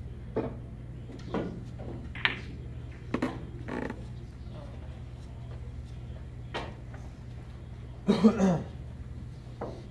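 Pool balls knocking during a shot: several short sharp clacks over the first few seconds, over a steady low hum. A little after eight seconds a short, loud burst of a person's voice, the loudest sound here.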